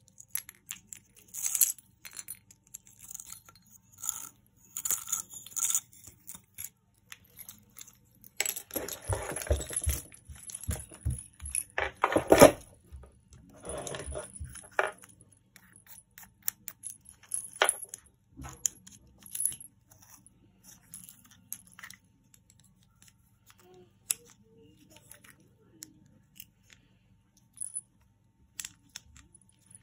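Small wooden busy-cube toys handled by hand: scattered clicks, taps and rattles of wood, beads and plastic parts. There is a denser run of rubbing and quick knocking about a third of the way in.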